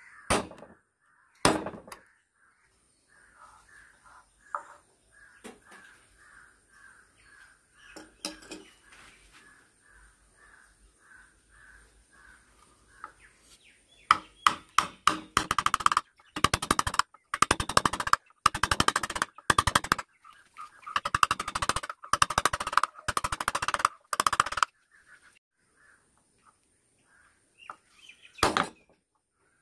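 Wood carving chisel work: a couple of sharp knocks as the upright chisel is struck into the wood, then about ten seconds of quick scraping strokes as a flat chisel is pushed by hand across the surface, paring the leaf relief, and one more knock near the end.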